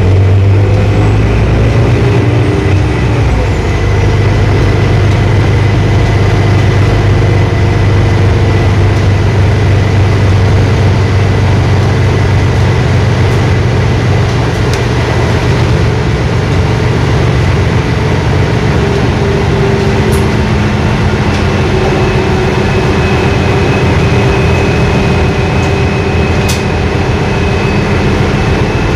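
Cabin sound of a Solaris Urbino 12 IV city bus driving: its DAF MX11 diesel engine and Voith four-speed automatic gearbox give a steady low drone, with a thin whine above it.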